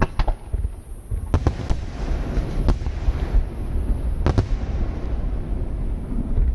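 Aerial firework shells bursting in the sky: a sharp bang right at the start, a cluster of bangs about a second and a half in, and single bangs near three and past four seconds, over a continuous low rumble and crackle.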